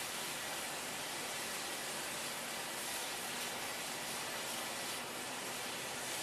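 A steady, even hiss with no whistle tone in it.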